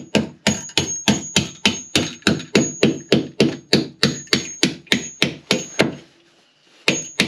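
Hammer driving a steel bolt through a tight-fitting hole in a wooden sole beam. The blows come fast and even, about four a second, each with a short metallic ring. They pause for about a second near the end, then start again.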